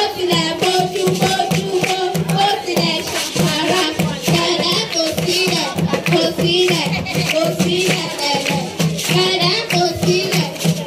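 Group of children singing a song together over a steady percussive beat.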